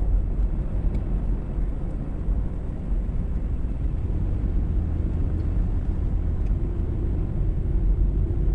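Steady low rumble of a Toyota 4x4 truck driving along a paved highway, engine and tyre noise, with a faint steady hum joining about two-thirds of the way through.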